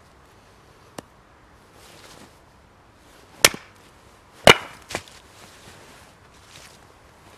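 Hatchet splitting small firewood on a wooden chopping block: a faint tap about a second in, then two sharp chops about a second apart, the second the loudest, followed closely by a lighter knock. The loudest blow brings the hatchet down onto the block with the wood stuck on its blade, splitting it.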